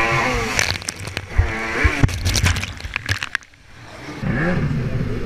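Freestyle jet ski engine revving up and down as the craft churns through white water, with a run of crackling splashes and spray hitting the helmet camera in the middle. The engine falls away briefly about three and a half seconds in, then picks back up.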